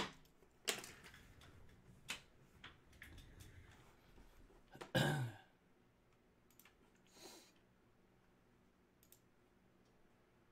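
Scattered clicks and light taps from a marker pen being handled at a desk, the sharpest at the start. About five seconds in comes a short sigh with a falling pitch.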